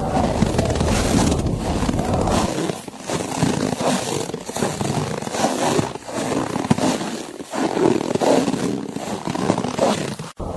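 Footsteps crunching through snow, one step about every second and a half, over a low wind rumble that fades a couple of seconds in.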